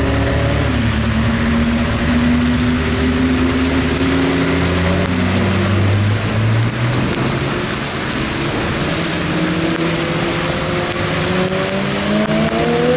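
Supercar engines running at low revs as the cars roll past one after another, tyres hissing through standing water under a steady wash of rain. In the second half an engine's pitch climbs as a car accelerates away.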